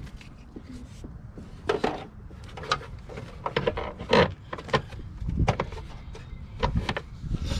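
Hands working in a pickup's engine bay: a string of irregular clicks, knocks and scrapes as black plastic parts are handled and fitted, with louder clunks about two seconds in and again near the middle.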